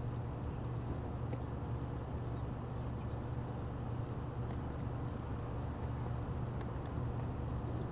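Steady low hum of an idling car engine, with a few faint scattered ticks.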